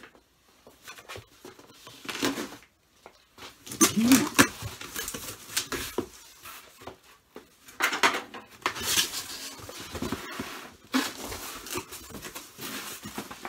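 Shipping box and packing material being opened and pulled apart by hand: irregular scraping, rustling and knocks, loudest about four seconds in and again around eight seconds.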